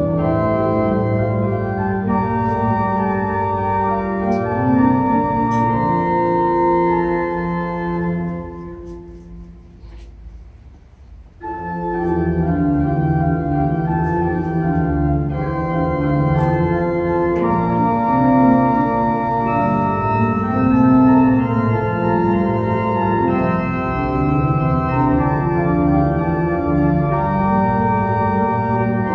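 Organ music playing slow, sustained chords; the music fades to a lull about eight seconds in and comes back in full about three seconds later.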